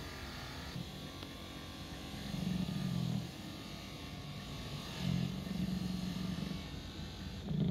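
Electric polishing motor running as a metal ring is held against its spinning buffing wheel. It makes a steady low hum that swells louder twice, at about two and a half seconds and five seconds in, and again near the end.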